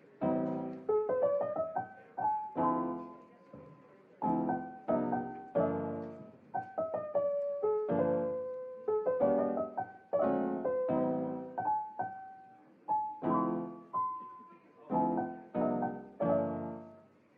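Background piano music: a slow melody of struck notes and chords, each ringing and fading.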